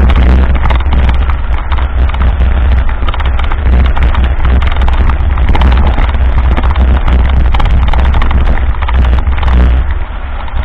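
Mountain bike rolling over a rough dirt road: a dense, fast, irregular clatter and rattle from the bike on the bumpy surface, with wind buffeting the microphone as a steady low rumble. It eases slightly near the end.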